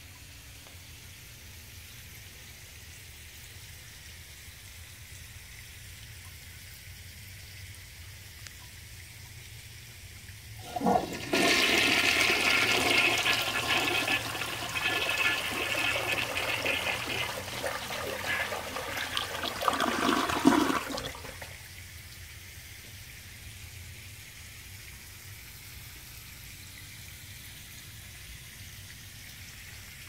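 1970 Peerless two-piece toilet flushing: a brief knock about eleven seconds in, then about ten seconds of rushing, swirling water that is loudest just before it stops about twenty-one seconds in.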